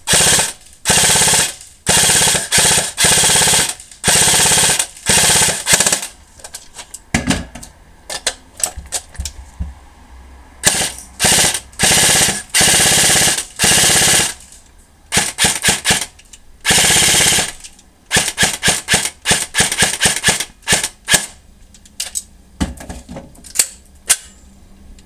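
D-Boys BI-5181 M4 airsoft electric gun, upgraded for high speed with 14:1 gears and an 11.1 V LiPo, firing on full auto at about 21 BBs a second. It fires repeated bursts, some half a second to a second long, with runs of short quick bursts and single shots in between.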